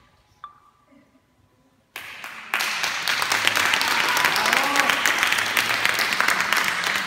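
Audience applauding: after about two seconds of near quiet, clapping breaks out and quickly swells to a steady, loud round of applause.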